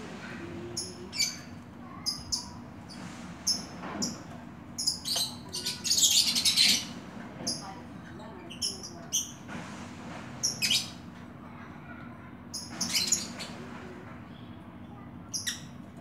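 Caged oriental magpie-robin (kacer) calling with short, sharp, high chirps, repeated every second or so, with a louder, longer harsh burst about six seconds in.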